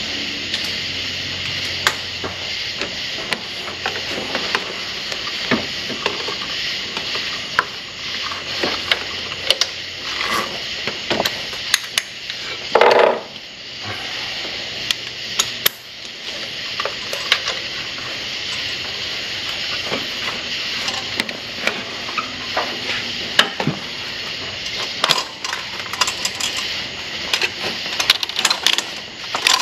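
Tools and metal parts clinking and tapping in a truck's engine bay: scattered sharp clicks and knocks over a steady hiss, with one louder scrape about thirteen seconds in.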